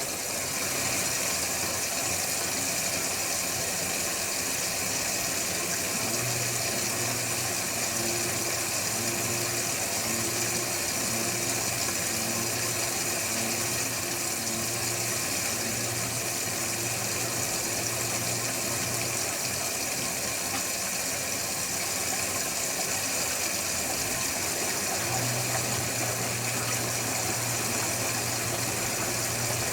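Electrolux Wascator W355H commercial washing machine running steadily, with a low hum that drops out for several seconds past the middle and then comes back.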